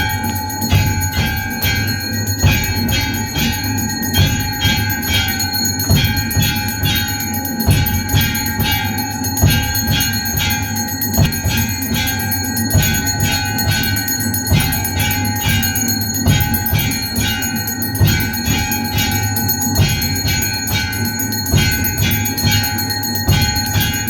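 Temple bells rung nonstop during a Hindu aarti: a dense, clanging peal of fast, even strikes with a steady rhythmic beat of low thumps underneath.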